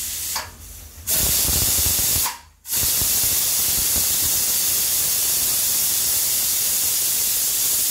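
Pressure cooker boiling meat, venting steam with a loud, steady hiss. The hiss swells about a second in and breaks off for a moment about two and a half seconds in before resuming.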